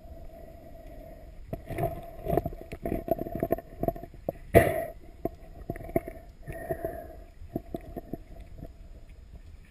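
Water sloshing and bumping around an underwater camera, with irregular knocks and clicks. The loudest knock comes about halfway through.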